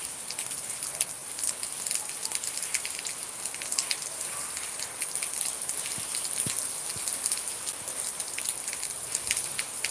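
Rain falling steadily on concrete rooftops and a tiled terrace: an even hiss with many separate drops ticking on the hard surfaces.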